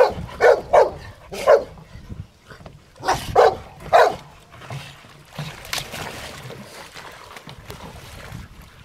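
Rottweilers barking in short sharp barks, about seven in the first four seconds, some in quick pairs, then a lull with one fainter bark. Water splashes and sloshes underneath as the dogs tussle with a plastic barrel in a shallow stream.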